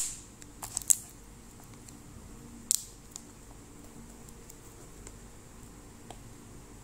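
Fingers handling a cardboard box and peeling a paper label off it: a few short, crisp scratches and rustles, a cluster about a second in and another near three seconds, then quieter handling.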